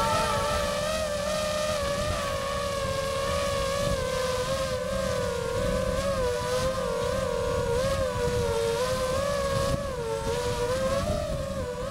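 DJI FPV quadcopter drone's motors and propellers whining, the pitch wavering up and down with throttle changes, over a low rumbling noise.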